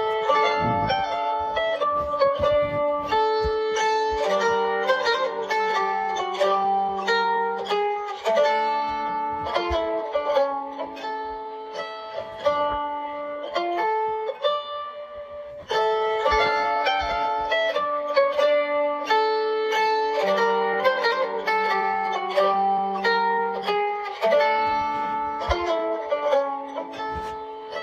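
Instrumental music with plucked-string notes, a quick melody over a lower line; the tune starts over about sixteen seconds in.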